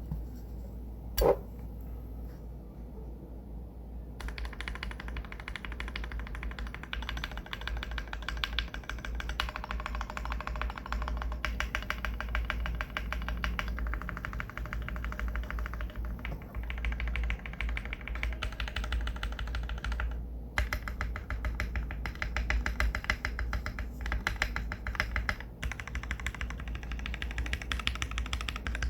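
Fast typing on a custom 60% mechanical keyboard: lubed Gateron KS-3X47 Black switches on a polycarbonate plate in a Tofu60 aluminium case, giving a dense run of keystroke clacks. One sharp knock comes about a second in, and the typing starts about four seconds in, with a brief pause around the two-thirds mark.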